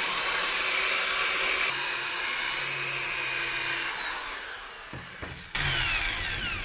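Electric drill spinning a cloth rag buffing wheel against an aluminium part, a steady whirring whine while polishing with compound. After about four seconds the whine falls in pitch as the drill winds down; it runs up again and falls once more near the end.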